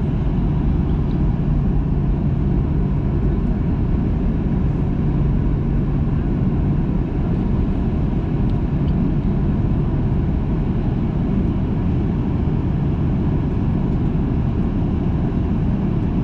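Steady cabin noise inside a Boeing 737-800 on the ground: its CFM56-7B jet engines running at idle, an even low rumble that does not rise or fall.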